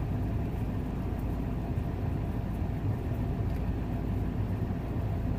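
Ford F-250 truck engine idling steadily, heard from inside the cab: a constant low hum.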